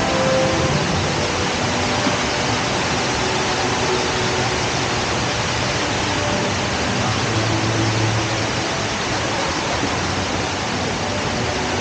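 Steady, even rush of a large indoor waterfall, Jewel Changi's Rain Vortex, its falling water making a continuous loud hiss.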